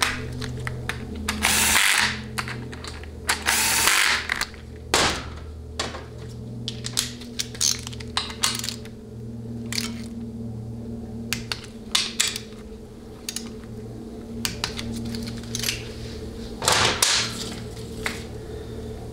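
Power ratchet running down the TCC solenoid's two 10 mm bolts on a 700R4 valve body in two short runs, one after the other, then sharp clicks and knocks of the tool on the bolts and valve body, with one more short run near the end.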